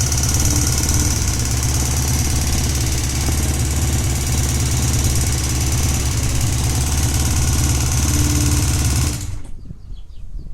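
Honda CBX 550 F's air-cooled inline-four engine idling steadily, with the abnormal mechanical noise that the owner places mainly on the right side of the engine; the running sound cuts off about nine seconds in.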